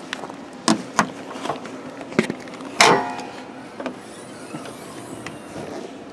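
A few light clicks, then about three seconds in a loud metallic clank with a short ring as the 2017 Ram Cummins pickup's hood latch is released and the steel hood raised, followed by quieter handling.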